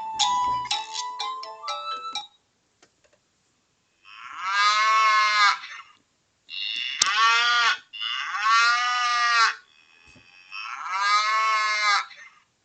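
A Sagem my700X mobile phone playing ringtones: a stepped electronic melody ends about two seconds in, then after a pause comes a novelty ringtone of cow moos, four long moos in a row.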